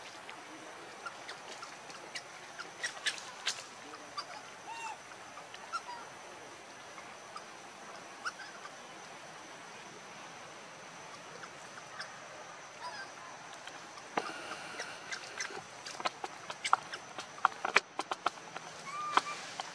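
Outdoor tree-canopy ambience: scattered sharp clicks and rustles, like twigs and leaves being moved, growing busier in the last few seconds, with a few short chirping calls and a faint steady high tone underneath.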